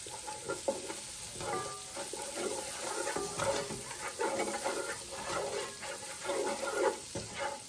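Chopped garlic and butter sizzling in a hot pan, with a wooden spoon stirring and scraping across the pan bottom in irregular strokes.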